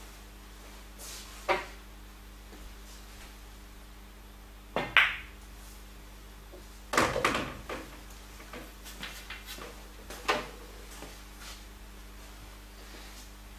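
A few sharp clicks and knocks of pool balls being handled and set down on a pool table, the loudest about five seconds in and a short rattling cluster about seven seconds in.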